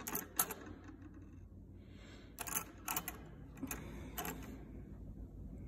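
A bunch of metal keys on a ring being handled, giving a scattering of light, sharp clicks and clinks against each other and the countertop.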